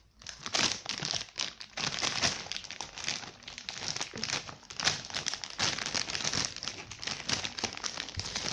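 Plastic Patos Rolls chip bag crinkling as it is shaken and a hand rummages inside it for chips, a run of irregular crackles with no break.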